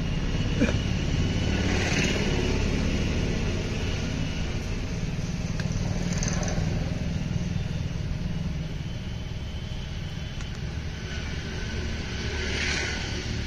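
Steady low rumble of a running engine, with a few light clicks over it.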